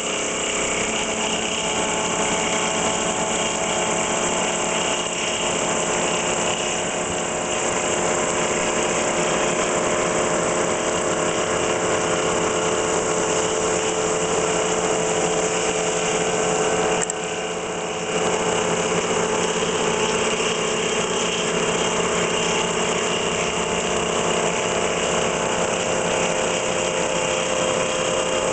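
2008 FPT Ronin CNC milling machine thread-milling the throttle end of a steel locomotive dry pipe: the spindle and cutter run steadily, with coolant spraying on the work, making a hiss under several steady tones. The level dips briefly a little past halfway.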